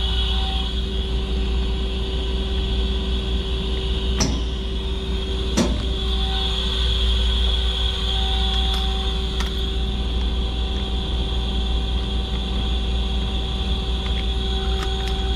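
Mazak 200MY CNC lathe running with a steady hum and whine while its live-tooling turret indexes to a new tool station. Two sharp clunks come about four and five and a half seconds in.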